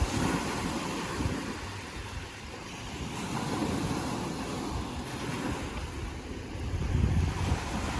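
Ocean surf washing in a continuous rush that swells and eases, with wind buffeting the microphone, heaviest about seven seconds in.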